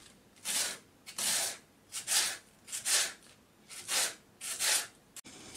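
Knife slicing spring onions onto a plastic cutting board: a short cut about every two-thirds of a second, eight in all, stopping abruptly about five seconds in.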